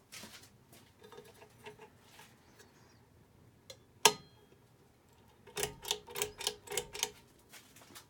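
Hunter Dimensions ceiling fan running faintly. One sharp click comes about four seconds in, and a quick run of clicks follows in the second half.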